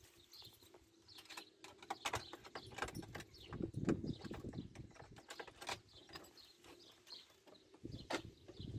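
Keys rattling and clicking in a front-door lock, with irregular small knocks, while birds chirp faintly in the background.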